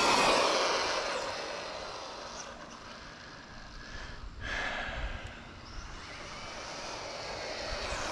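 Arrma Infraction RC truck with a Castle brushless motor running flat out past, a high motor-and-gear whine loudest about a quarter second in and fading as it speeds away. The whine dips briefly midway and slowly grows louder again near the end.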